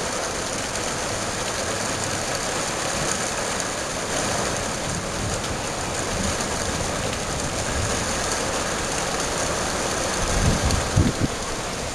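Heavy rain pouring down steadily in a storm. A few short low thumps come about ten to eleven seconds in.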